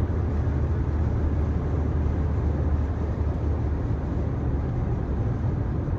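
Steady low rumble of a vehicle, heavy in the bass with an even hiss above it, holding level throughout.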